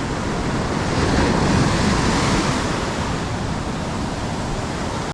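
Heavy ocean surf breaking and washing up the beach: a dense, steady roar of waves that swells loudest around two seconds in.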